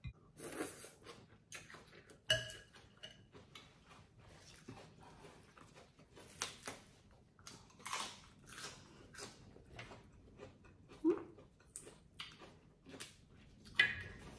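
Close-up eating sounds from a bowl of pho noodle soup: irregular slurps and chewing, with a utensil clinking sharply against the bowl a couple of seconds in.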